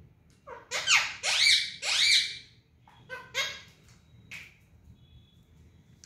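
Indian ringneck parakeets calling: a run of about four loud squawks with sweeping pitch in the first half, then a few shorter, softer calls.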